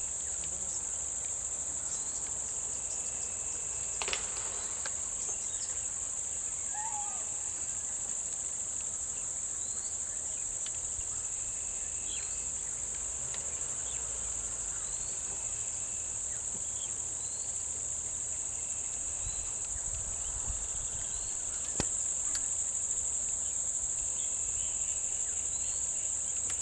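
Steady high-pitched insect chorus, with faint short chirps scattered through it and two sharp clicks, one about four seconds in and one a few seconds before the end.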